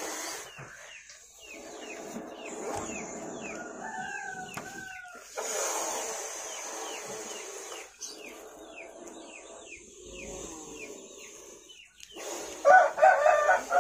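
King cobra growling: long, low, hiss-like growls that keep going with short breaks as it grapples with another snake. Chickens cluck in the background, with a loud burst of clucking near the end, the loudest sound here.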